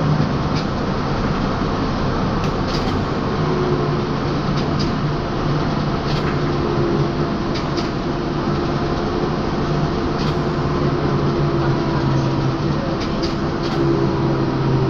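Trolza-5275.05 Optima trolleybus running along the street, heard from inside the cabin: a steady electric drive hum over road noise, with scattered short clicks and rattles from the body.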